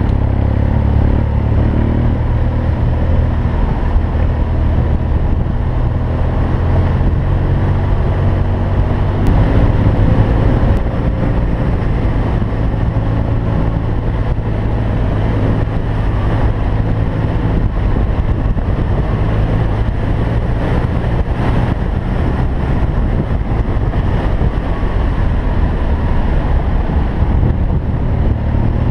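BMW R1200GS boxer-twin engine running steadily under way, with a deep low rumble; the revs climb near the end.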